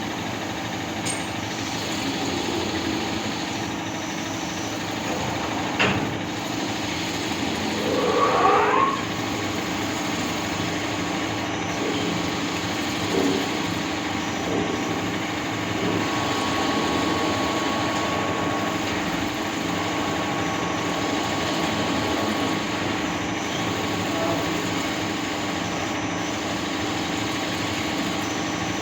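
ACE LT-2 CNC turning lathe running with a steady machine hum. There is a sharp click about six seconds in, a brief rising whine about two seconds later, and a thin steady high tone through the middle stretch.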